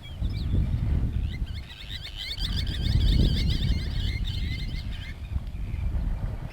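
A songbird singing a fast, chattering warble for about four seconds over a loud, uneven low rumble.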